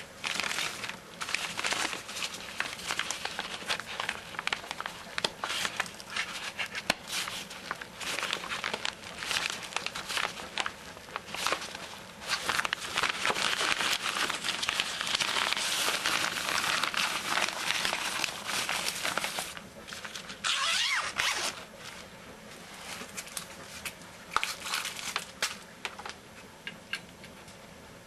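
A paper vacuum dust bag crinkling and rustling as it is handled and fitted inside the cloth outer bag of a Hoover Decade 80 upright vacuum, with the outer bag's zipper being run. The crackling is dense and busiest mid-way, thinning to a few scattered ticks near the end.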